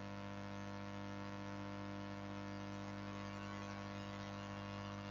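Steady electrical hum with many even overtones over a faint hiss, unchanging throughout, with no other sound.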